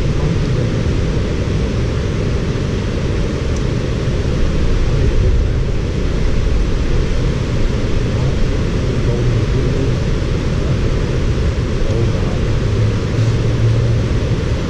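Steady rushing noise with a heavy low rumble and no distinct events.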